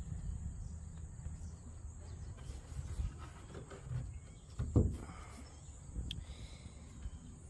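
Faint background noise: a low rumble with a few light knocks and a steady high-pitched whine.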